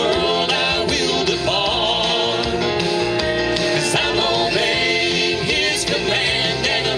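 Live gospel music from a family band, mid-song, with instruments playing and voices.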